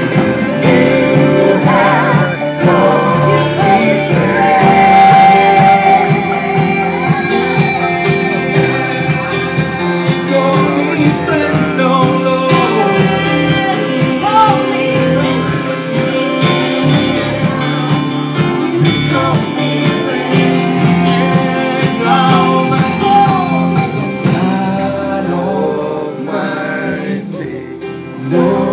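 Live worship band playing and singing: a singer over acoustic guitar and keyboard, continuous through the whole stretch.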